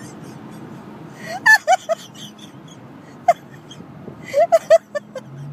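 A woman hiccuping and laughing in short high-pitched bursts: a cluster about a second and a half in, a single sharp one a little after three seconds, and another cluster near the end, over a steady low hum.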